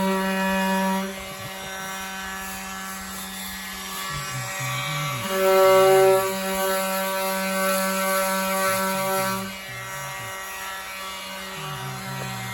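Electric sander running steadily with a humming whine and a hiss of abrasion as it strips old chipped paint from the VW Bus's steel body. It gets louder for about a second around five seconds in, then settles back.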